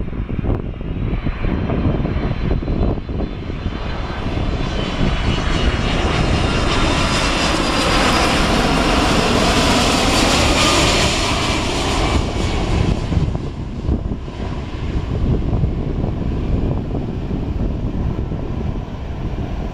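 ANA Boeing 767-300ER jet airliner passing low overhead on landing approach, its twin General Electric CF6 turbofans running at approach power. The engine roar and a high whine build to a peak about ten seconds in, the whine falling in pitch as the jet passes, then fade as it heads away toward touchdown.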